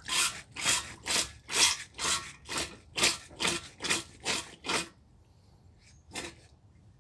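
Hand siphon pump worked in quick strokes, about two a second, each stroke squirting a jet of water drawn from inside a tire onto wet pavement. The pumping stops about five seconds in, and one more short stroke follows a second later.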